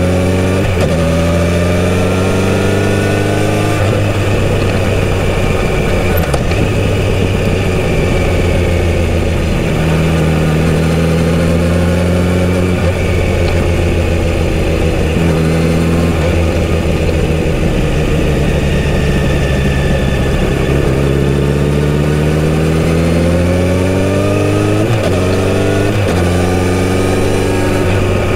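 Kawasaki Z900RS inline-four engine and exhaust under way. The revs climb with a short break at each upshift near the start, hold steady, fall away in the middle, then climb again through several quick upshifts near the end.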